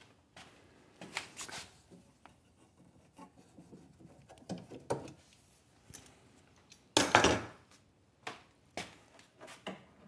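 Scattered wooden knocks and rubbing as a plywood cabinet and tools are handled, with one louder clunk about seven seconds in.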